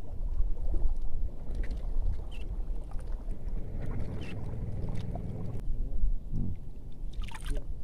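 Wind rumbling and buffeting on the microphone over small waves lapping in the shallows of a reservoir.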